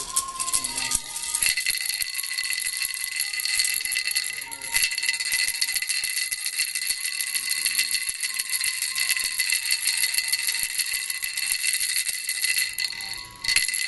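A bunch of keys shaken continuously in a steady metallic jingle, starting about a second and a half in and breaking off briefly near the end.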